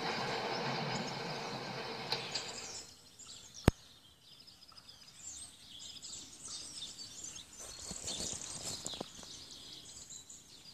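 Noise of a passing train dying away over the first three seconds, then a single sharp click and faint birds chirping in quiet outdoor ambience.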